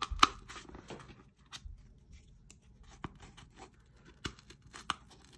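Scissors punching and snipping through a cardboard disc to cut its center hole: a few sharp crunching snips at uneven intervals, the loudest just after the start.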